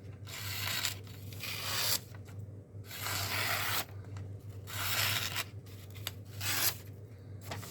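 A folding knife's D2 steel blade slicing through phone book paper in a series of about four or five separate cutting strokes, each a short papery hiss. The edge is sharp straight out of the box.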